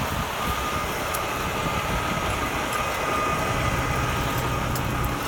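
Fire truck engine running steadily at idle: a low rumble with a thin steady whine over it.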